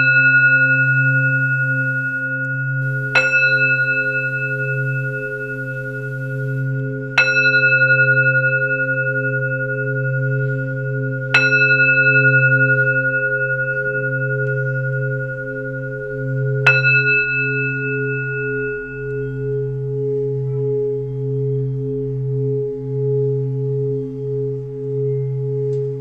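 Tibetan singing bowl struck with a padded mallet four times, a few seconds apart, each strike ringing on in clear bright tones that fade slowly; the last ring dies away a few seconds after the final strike. A steady low drone of deeper tones sounds underneath.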